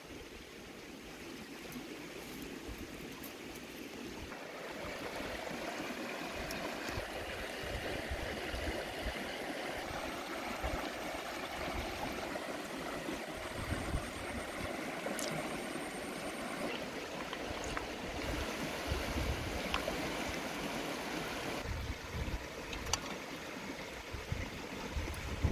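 Shallow river running over stones: a steady rush of flowing water.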